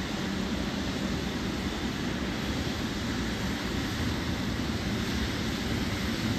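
Boeing 777 airliner's GE jet engines running at taxi power as the plane rolls slowly by: a steady rush of engine noise with a low, even hum.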